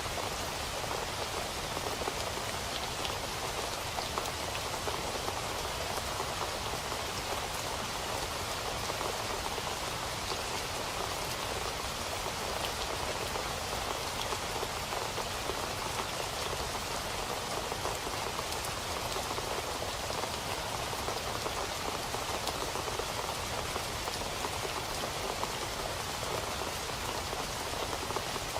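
Steady rain falling on a surface: an even hiss of many drops with faint scattered individual drop ticks.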